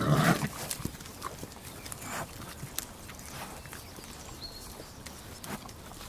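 Pigs grunting and feeding: one loud grunt right at the start, then smaller snuffles and scattered clicking chewing noises.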